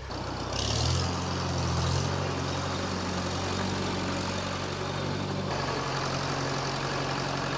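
A 1961 J.I. Case 730 farm tractor's engine running steadily at a low idle, briefly a little louder about a second in.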